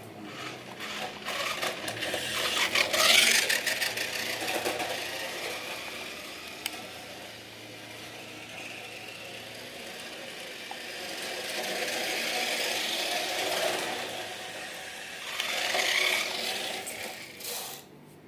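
Toy radio-controlled car driving on the floor: its small electric motor whirring with rattling wheels and body, rising and falling in several surges as it speeds up and slows down.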